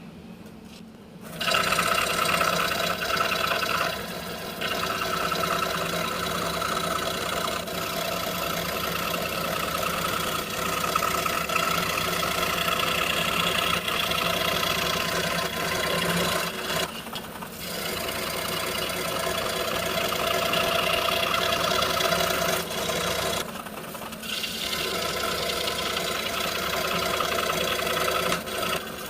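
Scroll saw running and cutting out a wooden clock part along a glued-on paper pattern. It starts about a second in and thins out briefly a few times as the cut pauses.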